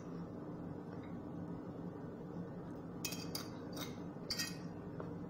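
Metal spoon clinking and scraping against a ceramic plate while scooping rice, with a few sharp clinks about three to four and a half seconds in, over a steady low hum.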